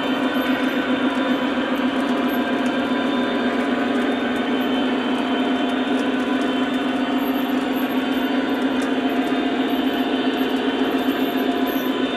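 O scale model freight cars rolling past on the track, a steady, even rumble of metal wheels on the rails.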